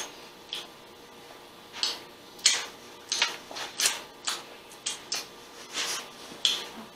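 Close-miked chewing of a mouthful of burger: a string of short, irregular wet smacking sounds, about one or two a second, mixed with the soft rustle of a paper napkin being handled.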